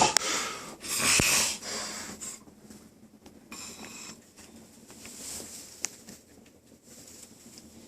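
A sleeping man snoring hard: two loud, breathy snores in the first second and a half, then a softer one and quieter breathing.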